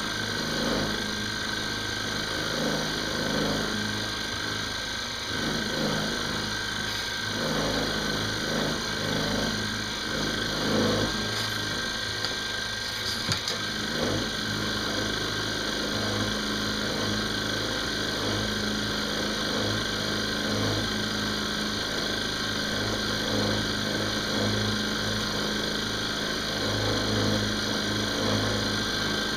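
Benchtop milling machine running at about 1500 RPM, its cutter taking a slow, light finishing pass through an aluminum blank. A steady motor hum with a constant high tone and the rough noise of the cut, with a few small knocks around the middle.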